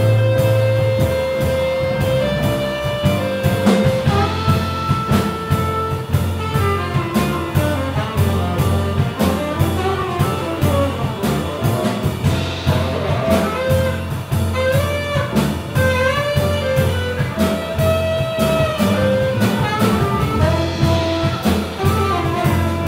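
Jazz quartet playing live: a tenor saxophone carries a melody of long held and sliding notes over double bass, piano and drums with steady cymbal strokes.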